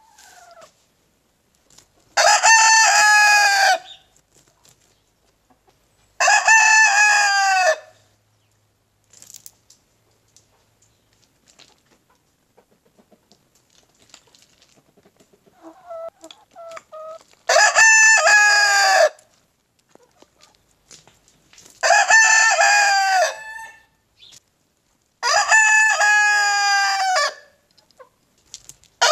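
White Leghorn rooster crowing five times, each crow about two seconds long, with a long pause between the second and third. Softer clucking comes just before the third crow.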